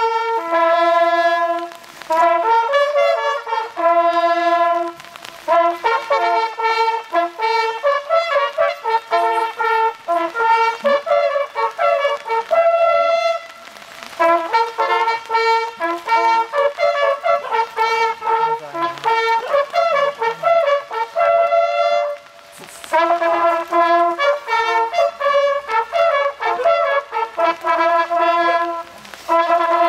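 Brass hunting horns playing a fanfare in several parts, held notes moving together in phrases with brief pauses between them.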